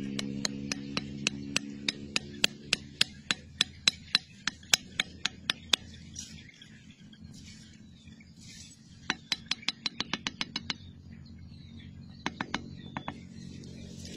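Machete tapping a bamboo stake into the ground: a run of sharp, evenly spaced knocks, about three a second, that stops about six seconds in, then a quicker run of about a dozen taps a few seconds later and a few more near the end.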